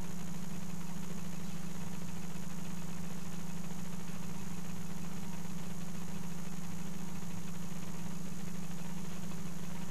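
Steady low hum of operating-room equipment, unchanging in pitch and level.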